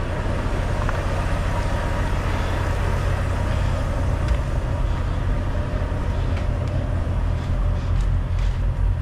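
Semi-truck's diesel engine running with a steady low rumble, with a few light clicks in the last few seconds.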